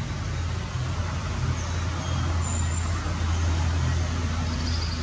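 A steady low motor rumble, like nearby road traffic, strongest a few seconds in.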